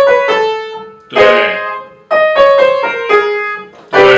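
Upright piano playing the accompaniment for a descending vocal scale exercise. A chord is struck about a second in and again near the end, each followed by a short run of single notes stepping down.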